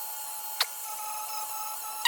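Dremel rotary tool running with a wood-sanding bit, a steady high-pitched whine, as it smooths cured JB Weld filler. A brief sharp chirp a little over half a second in.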